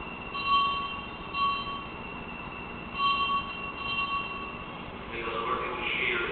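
Altar bells rung at the elevation of the host and the chalice during the consecration. There are two spells of clear ringing about three seconds apart, each struck a couple of times and ringing on for about two seconds.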